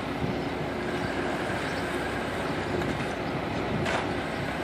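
Concrete truck running steadily, a constant mechanical hum with a faint steady tone. There is a short knock about four seconds in.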